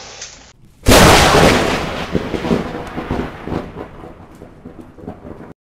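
A sudden, loud thunderclap about a second in, then a rumble that slowly dies away over several seconds.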